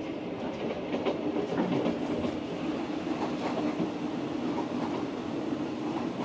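Sleeper train running, heard from inside the carriage: a steady rumble and hum with the wheels clicking and knocking over the rail joints.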